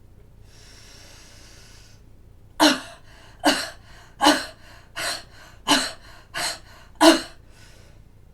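A person takes a long breath in through the mouth, then gives seven short, forceful open-mouth 'ha' huffs a little under a second apart. This is the huffing airway-clearance technique: forced exhalation with the glottis open, meant to move lung secretions up the airways before coughing.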